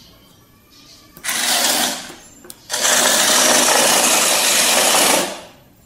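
Electric drive motors of a small homemade RF-controlled robot car running in two bursts, a short one about a second in and a longer one of about two and a half seconds, as the car drives and turns on a stone floor.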